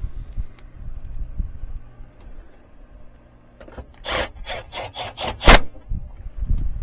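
A quick run of about six rasping, scraping strokes, ending in a sharp knock, after some low handling noise.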